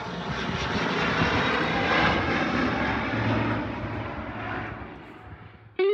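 Fixed-wing aircraft passing overhead: engine noise swells to a peak about two seconds in, then slowly fades away.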